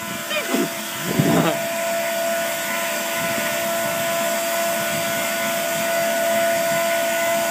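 Electric air blower feeding a coal forge, running with a steady whir and a constant hum.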